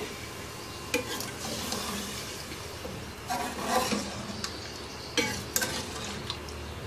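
A steel ladle stirring a thin potato and beef curry in an aluminium pressure cooker pot, clinking against the pot several times over a steady hiss.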